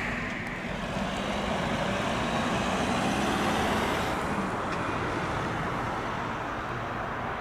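Heavy fire engine driving past without its siren: the engine note rises and grows louder to a peak about halfway through, then fades, over steady tyre and traffic noise.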